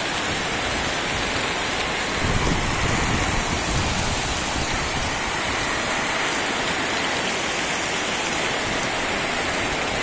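Heavy rain pouring steadily onto wet ground and a flooded lane, a dense, even hiss that swells a little deeper for a moment about two seconds in.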